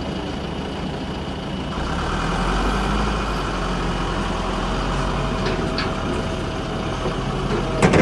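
JCB 3DX backhoe loader's diesel engine running, growing louder about two seconds in. A single sharp knock sounds near the end.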